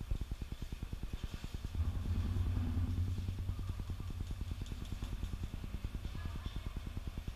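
A small engine running with an even low throb, about nine beats a second, and a louder hum swelling for about a second near the two-second mark.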